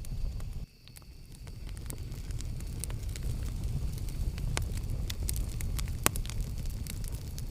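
Campfire burning: a steady low rumble of flames with scattered sharp crackles and pops, the loudest crack about six seconds in. Under a second in, the sound drops out abruptly and swells back over about a second.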